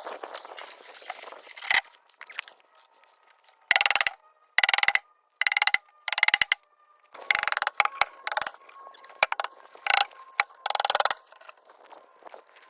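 About ten short, harsh scraping strokes, each under half a second, with brief pauses between them, starting about four seconds in.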